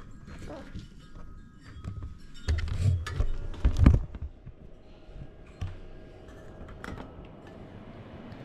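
Knocks and thunks from handling tools and gear on a soldering workbench, a cluster of heavier thuds a few seconds in, then scattered lighter clicks over a faint steady hum.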